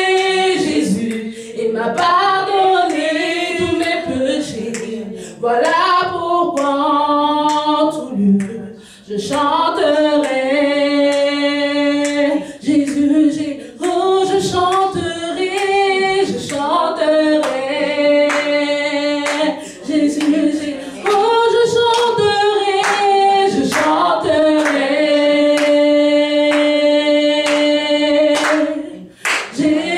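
A woman singing a Christian worship song solo and unaccompanied into a microphone. She bends between notes and holds two long notes, one near the middle and one near the end.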